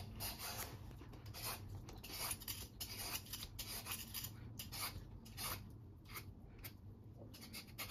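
Y-shaped peeler scraping the skin off a ripe mango in short, repeated strokes, roughly two a second, faint.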